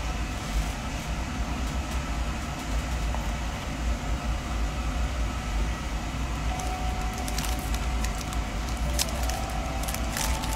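Steady low hum under the sound of hands handling Topps UFC trading-card packs. From about two-thirds in, a foil card-pack wrapper crinkles and crackles as it is torn open.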